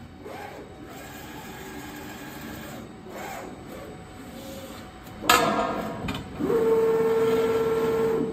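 CNC panel bender (flexible folding centre) for sheet-metal sink making running a cycle: low machine running noise at first, a loud metallic clank about five seconds in with a shorter knock soon after, then a steady high hum for the last two seconds that stops suddenly.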